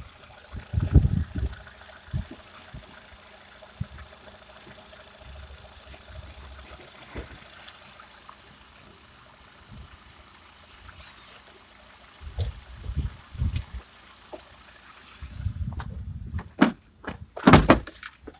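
Hyundai Accent's 1.4-litre petrol four-cylinder engine idling steadily, with a fast, light ticking from the engine bay. Near the end come handling knocks and a car door opening with a clunk.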